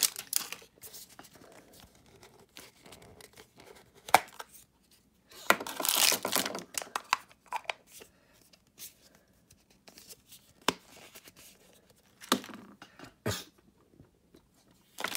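Thin plastic wrapping on a toy capsule tearing and crinkling in two short spells, near the start and around six seconds in. Sharp plastic clicks come now and then as the plastic capsule is handled and opened.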